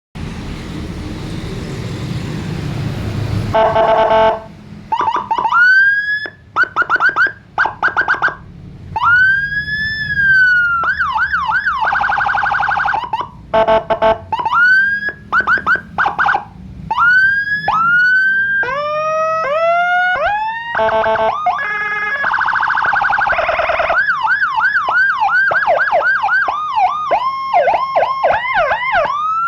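Police-escort siren with a Whelen tone kit on a CJB200 200-watt module, stepping rapidly through its different tones: rising and falling wails, fast yelps, quick chirps and buzzy horn-like blasts, each lasting a second or two. It starts after about three and a half seconds of loud rushing noise.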